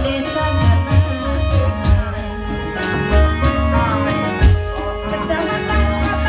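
Live music of an Indramayu reog (bleknong) troupe: deep drum beats under a held, wavering melody, with a singing voice.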